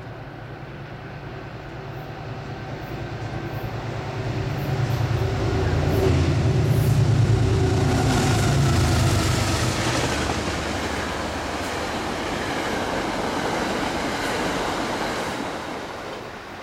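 Metro-North passenger train with GE Genesis P32AC-DM locomotive #222 passing by. A low locomotive hum swells to its loudest about six to nine seconds in, then gives way to the rushing wheel-on-rail noise of the passing cars, which fades near the end.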